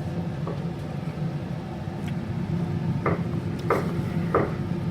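Pots and utensils clinking three times in the second half over a steady low hum.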